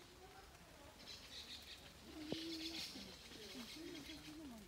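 A dove cooing in repeated low, rising-and-falling phrases over the soft hiss of light rain, with one sharp click about halfway through.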